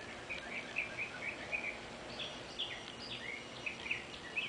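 Birds chirping in the background: a steady run of short, quick high notes, some rising and some falling, over a faint hiss of outdoor noise.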